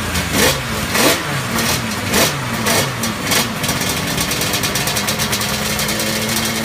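Two-stroke engine of a Rothmans Honda NSR Grand Prix race bike, just fired on a roller starter, revved in sharp throttle blips about every half second. After about three and a half seconds it settles into a steady, fast-pulsing idle.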